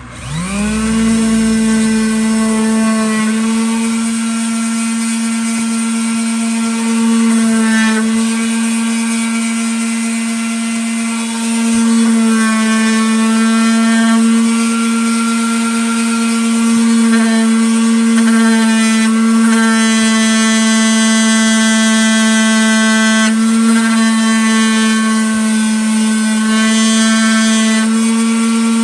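Electric power sander starting up, spinning up to speed within about a second, then running steadily as it sands a wood round, its pitch dipping briefly now and then as it is pressed into the wood.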